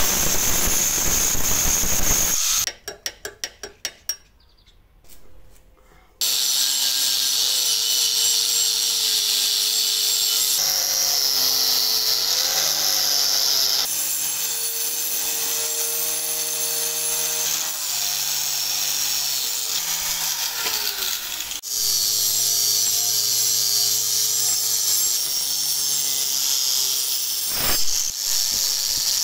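Angle grinder with a cut-off disc cutting through rusted steel. It stops, followed by a quick run of clicks and a short lull. Then an angle grinder with a cup wire brush scrubs rust off the steel spade blade, its motor pitch dipping and recovering as it is pressed on.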